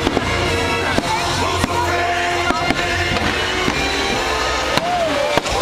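Fireworks show music playing over the park's loudspeakers, with fireworks bursting and crackling through it and about half a dozen sharp bangs.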